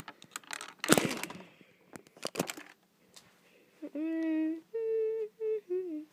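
Handling noise of a phone being moved about: clicks, knocks and rustling, with one loud knock about a second in. Then, from about four seconds in, a child's voice hums a few held notes of a tune, the last one sliding down.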